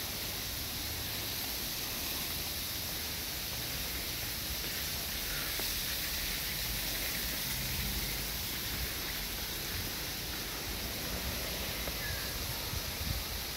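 Steady outdoor ambience: an even hiss with a low, uneven rumble underneath, and a few faint knocks near the end.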